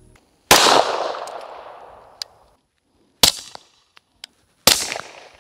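Three suppressed 9mm pistol shots from an HK VP9 firing 158-grain subsonic rounds through a full-length Silencer Central Banish 46 suppressor. Each is a sharp report, the first followed by a long echo dying away over about two seconds, the next two coming close together near the end.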